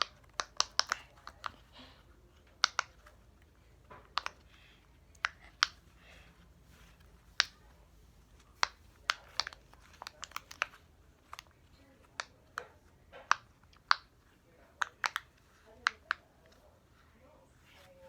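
Plastic fidget toy being clicked and handled: a string of sharp, irregular clicks and snaps, some in quick clusters.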